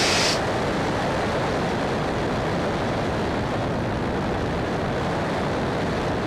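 Steady rushing noise of a small high-wing light airplane in flight, its engine and the airflow blended into one even sound with no distinct beat. A brighter hiss on top drops away about a third of a second in.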